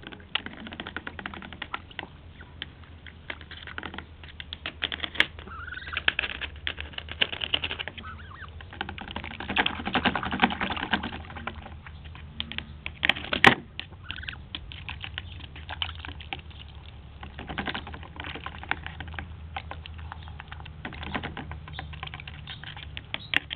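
Canada goose dabbling with its bill in a plastic tub of water: fast, uneven clicking and chattering of the bill working the water and the tub, with one sharp knock about halfway through.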